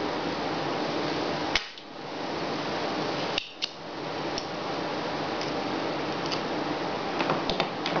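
Spring-loaded desoldering pump snapping sharply about a second and a half in as it sucks melted solder off the headphone-jack pads, then two more sharp clicks about two seconds later, over a steady background hiss. A few light taps follow near the end.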